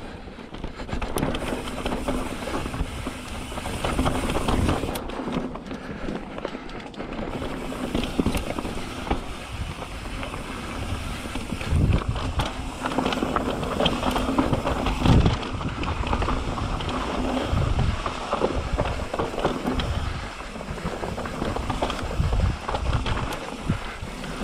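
Mountain bike descending a rocky dirt trail: tyres rolling over dirt and loose rock, the bike rattling, and wind on the microphone. Repeated heavy thumps from hitting bumps and rocks come through the second half.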